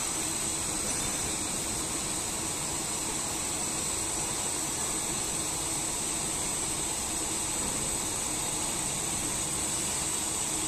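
GooDa TH-460NC twin-head duplex milling machine running: a steady, even mechanical noise with a constant high hiss over it.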